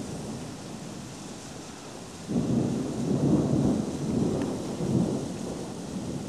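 A thunder rumble begins suddenly about two seconds in and rolls on for about three seconds before easing off, over a steady hiss of rain.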